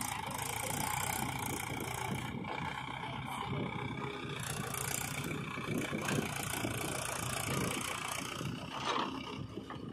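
Diesel engines of a JCB 3DX backhoe loader and a Mahindra tractor running steadily, the backhoe's engine working as it digs and dumps soil into the tractor's trolley.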